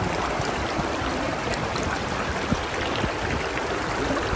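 Shallow mountain river rushing over stones and rocks, heard from just above the water surface: a steady, even rush of water.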